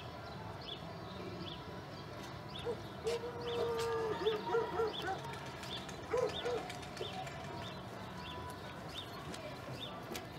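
Street ambience with a small bird repeating a short high chirp about twice a second. A lower, wavering call comes in a few seconds in.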